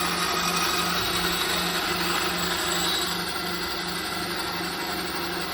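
Einhell 250 W benchtop bandsaw with a 6 mm blade running and cutting through hardwood, its low hum pulsing about two and a half times a second. The cutting noise eases about three seconds in.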